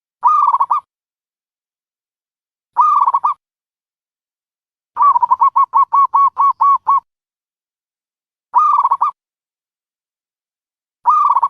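Dove calling: short cooing phrases about half a second long, repeated every two to three seconds. In the middle comes a longer run of about ten quick notes lasting about two seconds.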